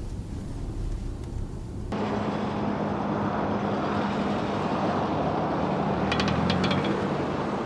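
Suzuki Swift Sport (ZC31S) running with a steady low hum, and about six seconds in a short run of rapid clacking: the rattle that has started to sound when the steering is turned fully to the left.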